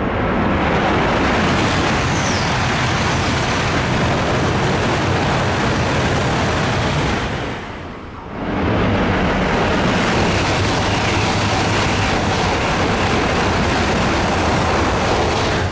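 Tohoku Shinkansen trains passing through a station at high speed, a loud, steady rush of air and wheel noise. It drops away briefly about eight seconds in, then the rush of a second passing train builds up again.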